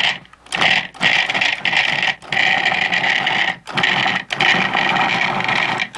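Food processor motor running in a series of short pulses, about six, with brief breaks between them, its blade cutting chilled butter cubes and shortening into flour for pie dough.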